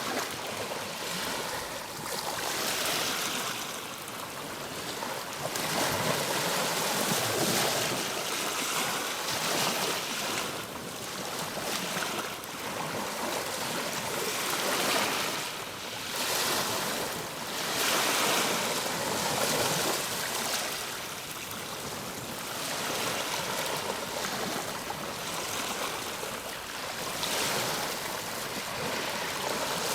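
Ocean waves breaking and washing on a shore, the surf swelling and falling back every few seconds.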